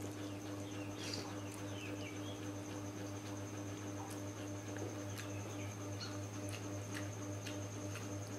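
A person slurping and chewing noodles, with small wet mouth smacks and clicks. Underneath are a steady low hum and a faint, high, steady tone.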